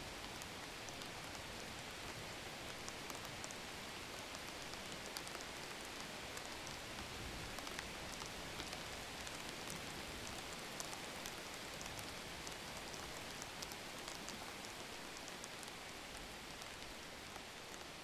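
Steady rain falling, with the fine ticks of many individual drops landing.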